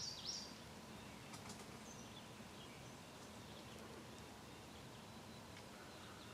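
Quiet woodland ambience: a small bird's quick high chirps right at the start, then only faint scattered bird calls and a few soft clicks.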